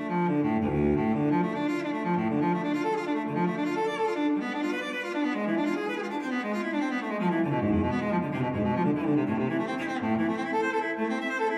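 Background music of bowed strings, cello and double bass with violin, playing a slow melodic line.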